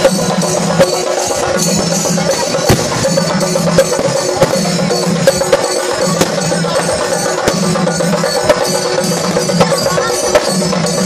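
Singari melam: an ensemble of chenda drums beaten rapidly with sticks, together with ilathalam hand cymbals clashing, in a loud, dense, driving rhythm. Sharp accented strokes stand out every second or so over the continuous rolling beat.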